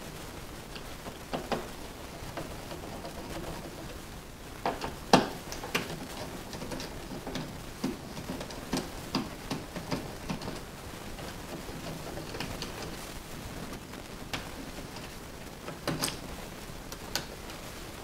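Phillips screwdriver backing out a light switch's metal mounting screws and the switch being worked loose in a metal electrical box: scattered small clicks, knocks and scrapes, the loudest about five seconds in and again near the end.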